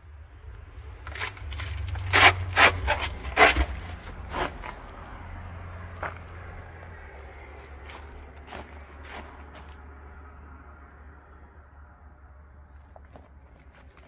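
Footsteps of a person walking with the camera: about six loud steps a couple of seconds in, over a low rumble, then faint scattered steps on a leaf-covered path.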